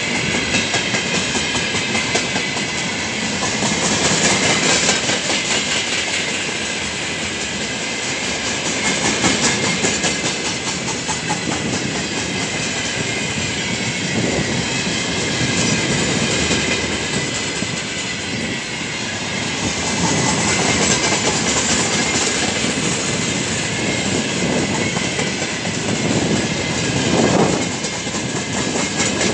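Empty railway tank wagons of a freight train rolling past close by, with a continuous rumble and clatter of wheels on the rails that swells and eases as the cars go by.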